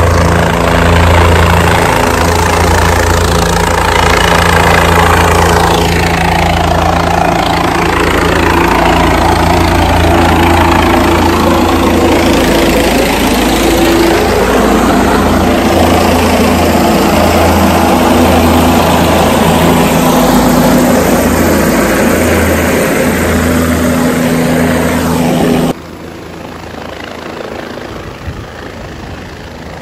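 Helicopter flying close by, its rotor and engine loud and steady, until the level drops suddenly near the end.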